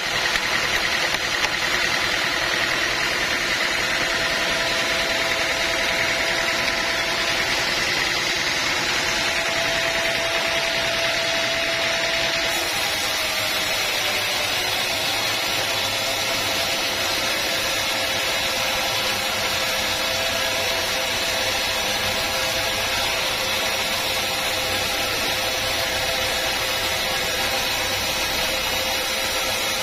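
Sawmill machinery running steadily: an engine and saw making a continuous mechanical din with a steady high whine. The whine's pitch shifts slightly about halfway through.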